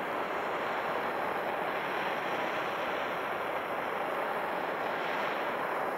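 Handheld gas torch flame hissing steadily against a coated foam surface.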